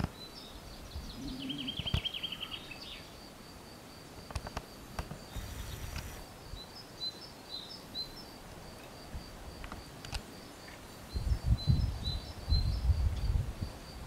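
Outdoor natural ambience: a high chirp repeated steadily about three times a second, with a brief rapid trill about a second in. A few faint clicks, and low rumbling bursts near the end.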